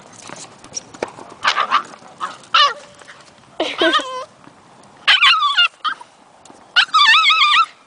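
Siberian husky puppy's play vocalizing: about five high-pitched yips and whining howls, one falling in pitch, and a longer warbling call near the end.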